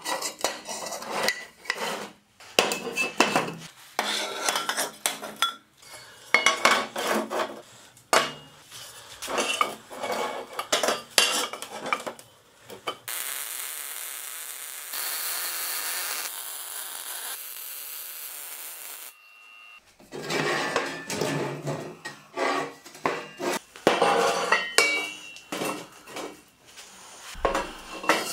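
Steel square tubing clanking and scraping as lengths are handled and laid on a steel-topped worktable. About halfway through comes roughly six seconds of MIG welding, a steady hissing crackle, and then more clanking of tubes as the frame is fitted together.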